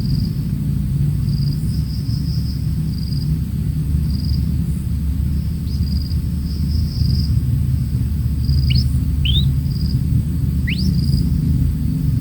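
Steady low rumble with high insect chirps repeating in short groups, and a few quick rising bird whistles in the second half.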